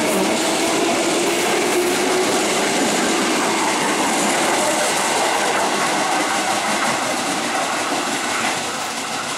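A train running past on the rails: steady wheel-on-rail noise with some clickety-clack, easing off slightly near the end.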